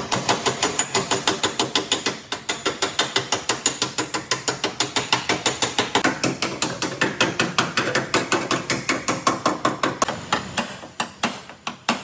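Rapid, even hammer blows on car-body sheet metal, about six a second, as a dented back panel is beaten out; the blows thin out and weaken near the end.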